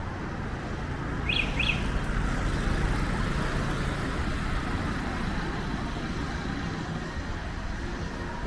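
Steady street noise with a low rumble, and two short high chirps in quick succession about a second and a half in.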